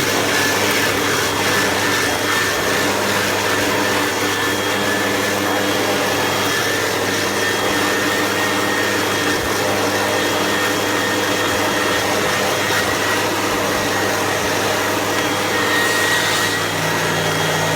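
Hoover WindTunnel Rewind upright vacuum cleaner running steadily, a constant rush of suction with a high motor whine.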